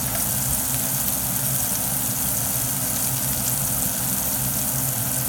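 Food sizzling steadily as it fries in a pan, over a steady low hum.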